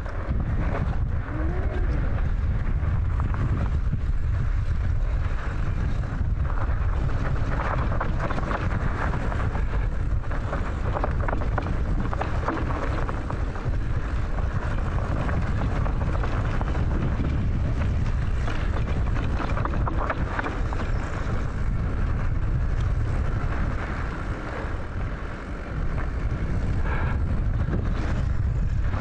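Heavy wind rumble on the microphone with a vehicle engine running beneath it; the level dips briefly near the end.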